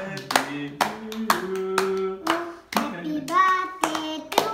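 Several people clapping hands in a steady rhythm, about three claps a second, while voices sing along, a child's among them.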